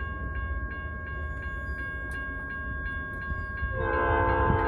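Diesel freight locomotive's air horn sounding a held chord over the low rumble of the approaching train. About four seconds in the horn gets louder as lower notes join in.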